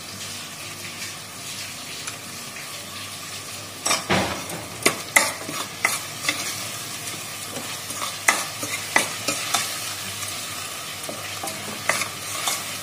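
Green chilli-coriander paste sizzling in oil in a stainless steel pressure cooker, with a steady hiss. From about four seconds in, a steel ladle stirs the paste, clinking and scraping irregularly against the pot.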